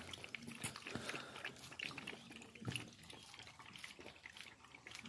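Several puppies lapping milk from a steel bowl: faint, irregular wet clicks.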